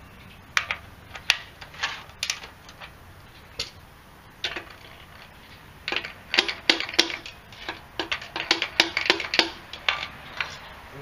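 Sharp, irregular knocks and taps on a Datsun L16 engine block as a piston is driven out of its rusty bore, a few strikes at first, then a quick run of them in the second half.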